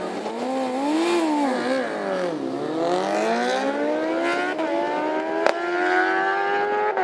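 Sport motorcycles accelerating hard down a drag strip. The engine note rises, dips about two and a half seconds in, then climbs steadily as they pull away, with a few sharp cracks in the later seconds.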